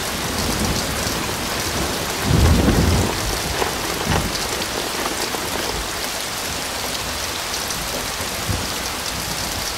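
Heavy rain pouring steadily, cutting in suddenly, with a low rumble of thunder swelling about two and a half seconds in.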